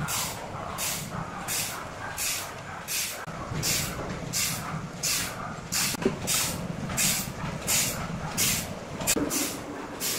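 Sawmill machinery running with a steady low hum and a regular hiss, about two pulses a second, with a single sharp clank about six seconds in.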